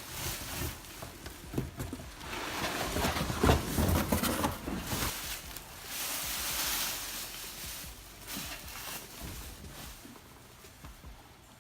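Irregular rustling with scattered knocks and clicks: handling noise, fading toward the end.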